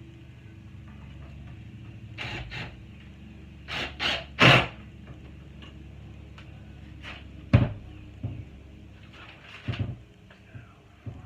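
A series of irregular knocks and clunks, the loudest about four and a half and seven and a half seconds in, over a steady low mechanical hum.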